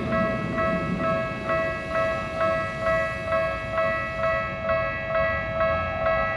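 Japanese railroad crossing warning bell ringing 'kan kan' in an even rhythm, about two strikes a second, over a steady ringing tone. The rumble of a passing train fades away at the beginning.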